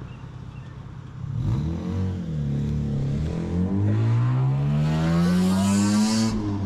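Vehicle engine accelerating: its pitch climbs steadily for several seconds from about a second and a half in, then cuts off abruptly near the end.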